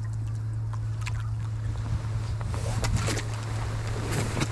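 Steady low engine drone of a passing boat, with scattered light clicks and knocks over it.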